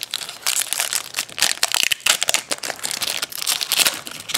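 Foil wrapper of a trading-card pack crinkling and tearing as it is opened and handled, a dense run of crackles.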